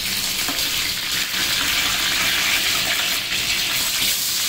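Hot oil sizzling steadily in a large aluminium pot as slit green chillies and whole spices fry in it, the first tempering stage of a biryani masala.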